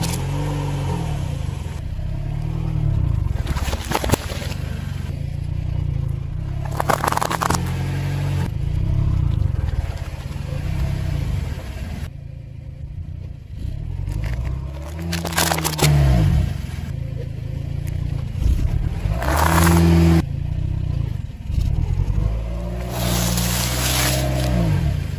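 A car tyre rolls over and crushes a series of objects on asphalt, including a drink can and a stack of rice cakes. The car's engine runs low and rises and falls in pitch. A handful of short, sharp crunches and cracks stand out over it.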